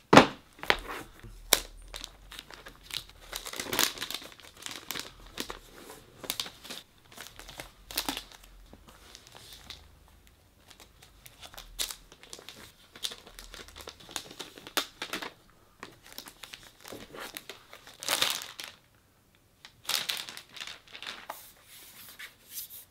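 Packaging wrap crinkling and tearing as a new laptop is unwrapped and handled, in irregular crackly bursts with a few short pauses.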